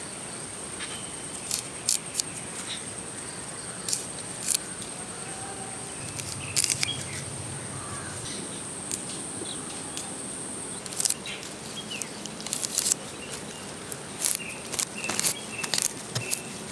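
Moringa leaves being stripped from their thin stems by hand onto a cloth: scattered sharp clicks and crackles of leaves and stems. Behind them is a steady high-pitched insect drone that stops about two-thirds of the way through, and a few faint bird chirps.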